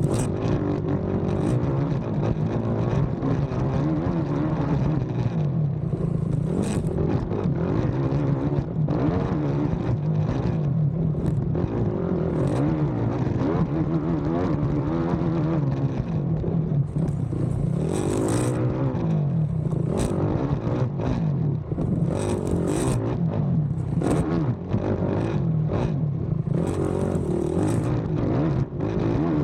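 Racing ATV engine running hard on a rough cross-country track, revving up and down as the rider works the throttle, with scattered clattering knocks from the machine over the terrain, heard from an onboard camera on the quad.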